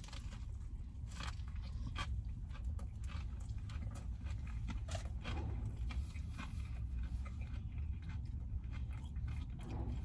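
A person biting into a crispy-breaded fried chicken sandwich and chewing it close to the microphone: a run of small irregular crunches and wet mouth clicks over a low steady hum.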